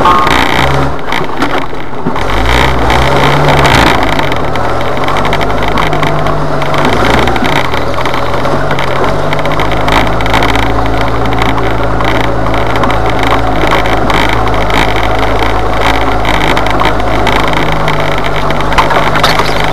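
Jeep Wrangler engine running as it crawls along a wooded off-road trail. Its revs rise and fall over the first few seconds, then hold steady. Frequent short clicks and rattles run over it.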